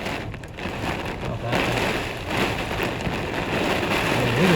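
Heavy rain pelting a car, a steady dense hiss of drops.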